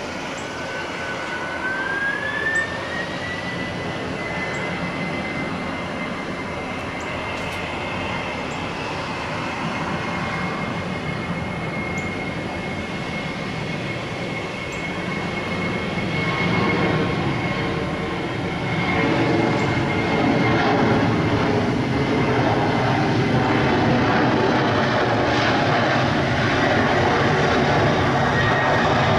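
Boeing 767-300F freighter's General Electric CF6-80C2 turbofans spooling up for takeoff. A whine rises over the first few seconds and then holds steady, while the jet roar grows louder over the second half as the aircraft accelerates down the runway.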